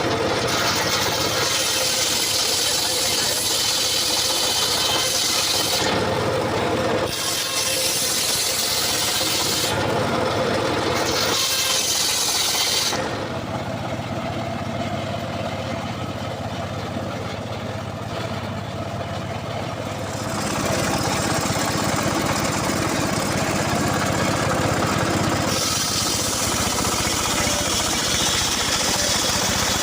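Petrol engine-driven saw running and cutting wood, the engine loud and steady. About midway it drops to a quieter, duller run for several seconds, then comes back up to full cutting.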